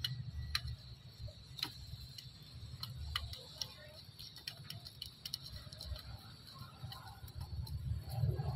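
Scattered sharp ticks and clicks from two kittens scuffling and play-fighting on a wooden board, over a low rumble. The sound grows louder near the end.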